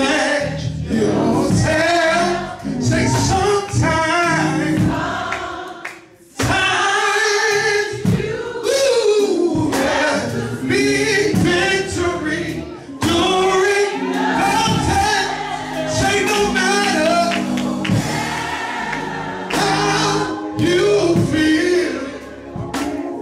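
Live gospel praise singing by a group of singers on microphones, with sustained low notes underneath and a short break about six seconds in.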